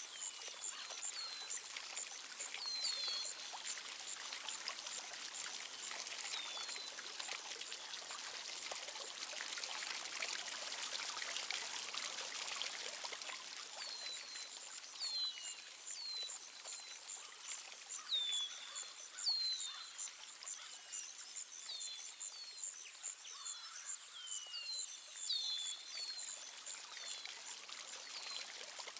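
Small birds chirping in short falling calls, with a rapid high trill, over a steady rush of running water. The chirps stop for several seconds in the middle while the water sound swells, then resume.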